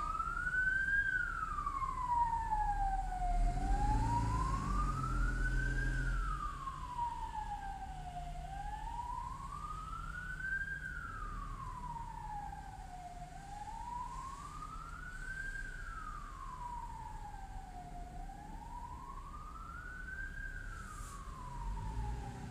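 A siren wailing: one tone that rises and falls slowly and evenly, about once every five seconds, five sweeps in all. A low vehicle-engine rumble comes in under it for a few seconds near the start.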